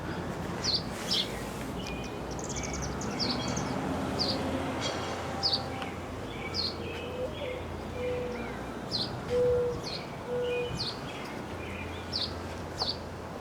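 Birds chirping: short high chirps repeating about once a second over a steady outdoor background hum, with a few lower held whistled notes about halfway through.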